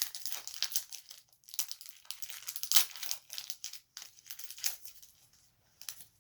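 Foil wrapper of a Pokémon card booster pack crinkling and tearing as it is handled and ripped open: a dense run of crackles that dies away about five seconds in.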